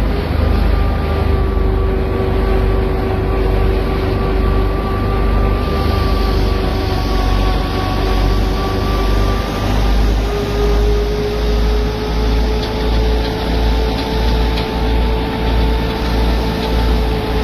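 Tractor-driven wheat thresher running steadily, a loud low rumble with a steady mechanical whine that steps up slightly in pitch about ten seconds in.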